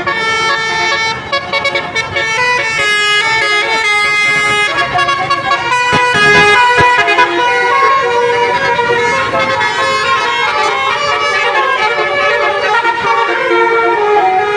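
Bus 'basuri' telolet horn, a multi-note melodic horn, playing a tune of held notes that step up and down in pitch, loud and continuous.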